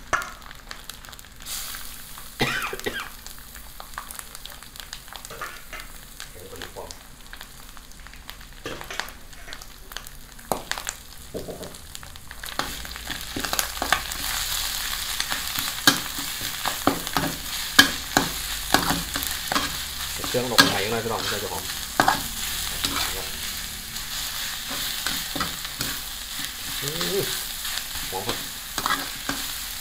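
Minced frog meat and chilli paste sizzling in a wok while a metal spatula stirs and scrapes it, with frequent clicks and knocks of the spatula against the pan. The sizzle grows louder about halfway through.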